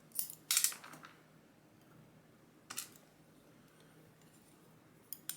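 Light metallic clicks of driver pins being taken out of a Winkhaus Titan lock cylinder: a few in the first second, one near the middle, and two close together near the end.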